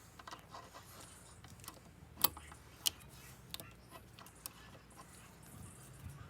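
Scattered light clicks and taps, with two sharper knocks about two and three seconds in, over a faint low hum.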